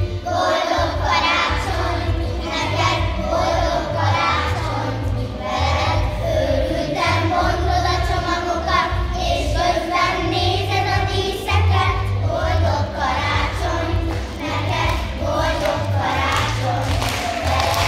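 Children's choir singing together over musical accompaniment with a low pulsing bass, the singing starting right at the opening.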